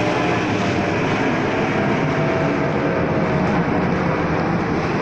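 Steady rushing noise of ocean surf breaking on the rocks.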